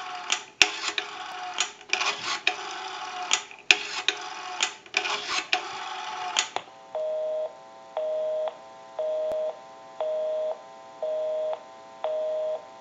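A telephone number dialed on a Northern Electric three-slot payphone as a quick string of short touch-tone beeps, a dozen or so digits over about six seconds. Then a busy signal: a low two-note tone pulsing on and off about once a second, half a second on and half off, meaning the called line is busy.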